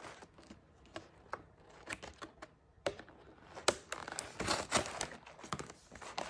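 Scissors snipping at cardboard-and-plastic toy packaging, as a string of separate sharp clicks and snips, with a stretch of crinkling and rustling of the box insert a little after the middle.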